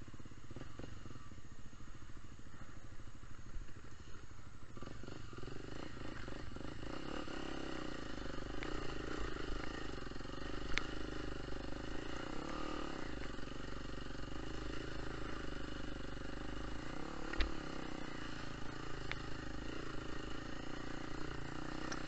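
Small trail-bike motorcycle engine running steadily under way, its note filling out about five seconds in, with a few sharp clicks or knocks over it.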